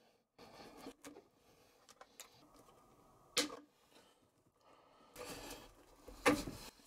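Scattered handling noises of small parts and hand tools: a few short clicks and knocks, the sharpest about three and a half seconds in and another cluster near the end, with a brief rustle just after five seconds.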